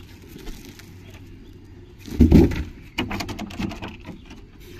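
Handling noise as something is set down and arranged by hand: a louder thump about two seconds in, followed by a run of light clicks and knocks.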